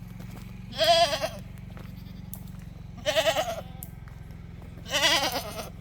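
Goats bleating: three separate wavering calls, about two seconds apart, over a steady low hum.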